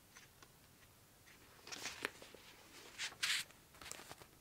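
Pages of a paperback manga rustling as the book is handled and opened, in a few short rustles of paper, the loudest about three seconds in.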